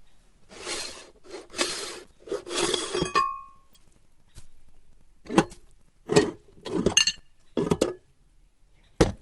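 A string of short clinking and scraping strokes, hard things knocking against metal or glass. The first few, about a second in, are longer rasping scrapes close together; the rest are sharp single knocks about a second apart.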